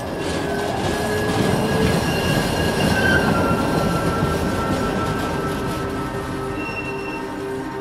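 Train running on rails, its wheels squealing in one long high steady tone that dips slightly in pitch about three seconds in, over the rumble of the carriage.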